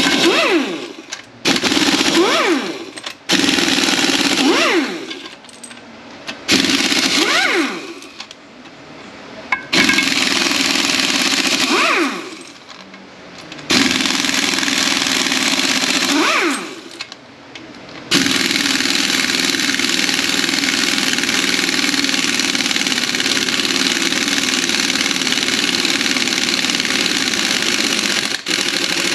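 A power wrench backing bolts out of a Mercedes 722.9 automatic transmission in about five short bursts, each ending in a falling whine as the tool spins down, then one long unbroken run of about ten seconds.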